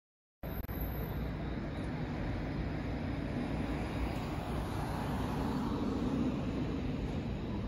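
Steady street ambience with a low hum of distant city traffic, starting abruptly about half a second in.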